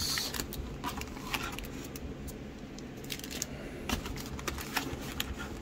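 Wrapped trading-card packs crinkling and scraping against a cardboard box as they are pried out of a tight fit, heard as a string of light clicks and rustles.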